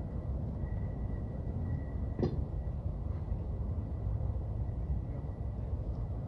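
A steady low rumble with one sharp knock about two seconds in.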